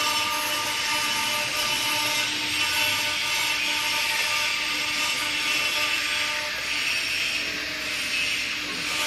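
CNC stone engraving machine's spindle running while cutting stone: a steady hiss with a few constant whining tones under it.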